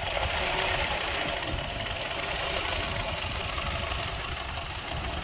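2002 Honda CR-V's 2.4-litre four-cylinder engine idling roughly and unevenly, with its intake air temperature sensor unplugged; the rough, unsteady idle is the fault being chased.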